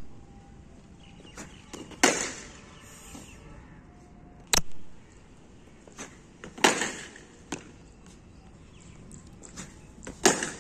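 Cricket ball being struck by a bat, three hard knocks about four seconds apart, each just after a smaller knock of the ball pitching on the concrete strip. A single sharp crack falls between the first two hits.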